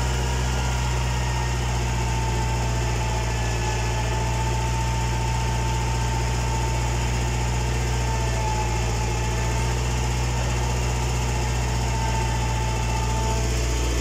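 Tractor diesel engine running steadily under load while pulling a subsoiler through hard, compacted soil, heard from inside the cab, with a faint steady whine above the engine note. The engine is coping easily with the deep pull.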